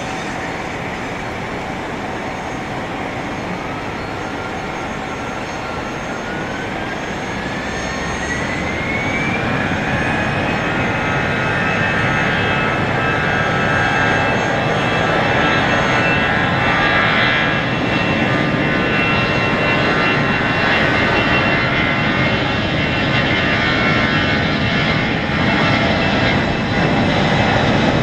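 Airbus A320 jet engines spooling up for takeoff. A whine climbs in pitch over several seconds, starting about four seconds in, as the engine roar grows louder, then holds steady at takeoff power.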